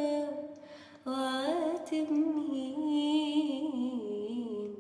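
A woman singing unaccompanied, her voice dry with no added effects. A held, wavering note fades out, then about a second in she starts a new wordless phrase with ornamented runs that steps down in pitch and ends near the close.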